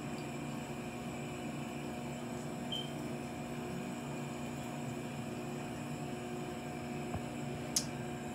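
Steady hum and hiss of room noise, like a running fan, with one sharp click near the end.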